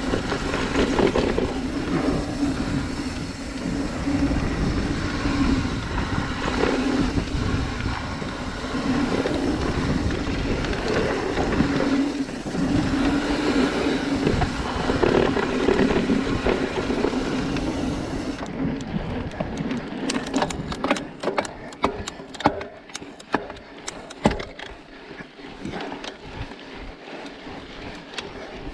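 Mountain bike riding down a dirt singletrack, heard from a chest-mounted camera: wind rushing over the microphone and tyres rumbling over the trail. About 18 seconds in, the rushing drops away and quick clicks and rattles from the bike over rough ground take over.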